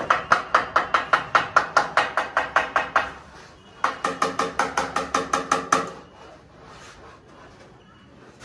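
Rapid, even knocking, about seven knocks a second, in two runs: the first stops about three seconds in, the second starts shortly after and stops about six seconds in.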